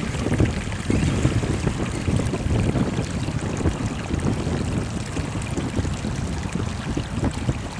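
Radio-controlled rock crawler splashing through a shallow, rocky creek over the rush of the stream, under a heavy low rumble of wind on the microphone. The rumble eases toward the end.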